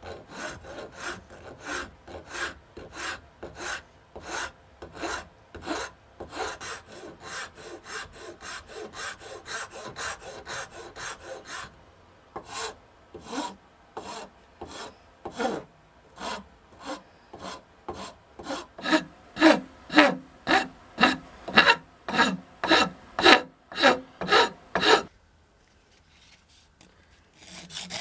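Hand file stroked back and forth across a wooden machete handle, rasping at about two strokes a second. The strokes grow louder in the second half and stop a few seconds before the end.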